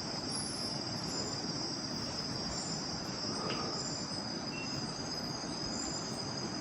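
Night chorus of crickets and other forest insects: a steady, high, continuous trilling over a faint background hiss.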